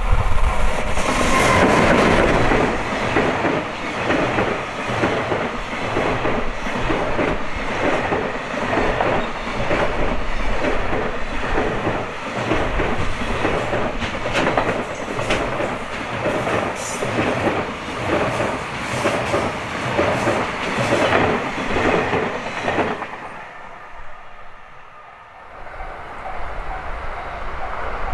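Electric train passing close by at a level crossing, its wheels clicking in an even rhythm over the rail joints. The sound falls away about 23 seconds in and builds again near the end.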